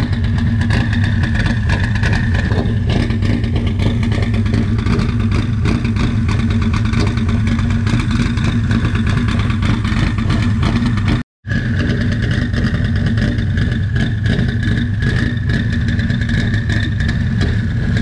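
Twin-turbo Mustang SVT Cobra's 4.6-litre DOHC V8 idling steadily, with a thin steady whine above the engine note. The sound breaks off for a moment about two-thirds of the way through.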